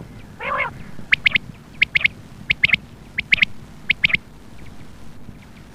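Female quail calling: one harsh rasping note about half a second in, then five quick pairs of sharp, high-pitched notes spaced about two-thirds of a second apart.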